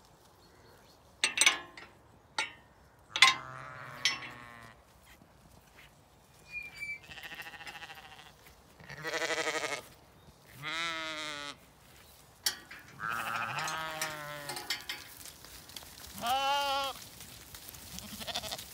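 Zwartbles sheep bleating, about seven separate bleats of different pitch, some deep and some higher, each with a wavering quaver. A few sharp knocks in the first few seconds are the loudest sounds.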